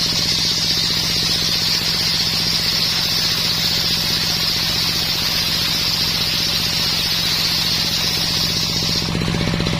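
Homemade circular sawmill sawing coconut wood: a loud high hiss from the blade in the wood over the steady, pulsing run of the engine that drives it. The cutting hiss stops about nine seconds in while the engine runs on.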